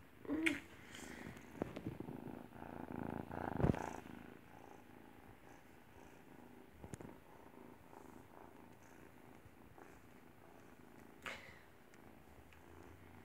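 Kitten purring steadily while being stroked, with a louder rustle of handling about three to four seconds in.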